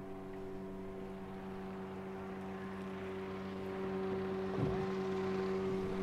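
Boat's outboard motor idling with a steady hum, while a cast net is gathered up for a throw, its soft rustle growing louder towards the end.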